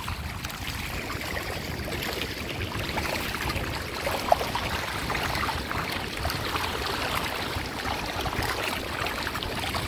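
Shallow water lapping and washing over sand, with a steady low rumble of wind on the microphone. A single short, sharp tick comes about four seconds in.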